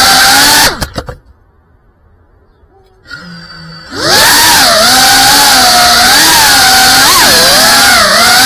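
GEPRC CineLog35 cinewhoop drone's motors and propellers whining, the pitch wavering up and down with the throttle. About a second in the whine drops away almost to silence, and near four seconds in it comes back at full level with a quick rise in pitch.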